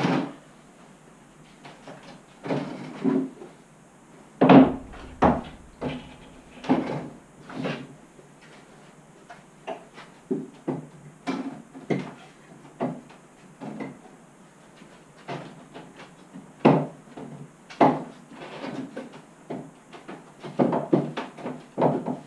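A string of irregular wooden knocks and clunks from handling a large plywood-and-MDF workshop table, with one heavy thud about four and a half seconds in.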